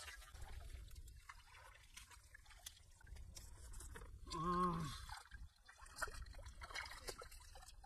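Hands splashing and sloshing in shallow muddy water among rice stubble while groping for catfish. About halfway through comes a brief wavering vocal sound from a man.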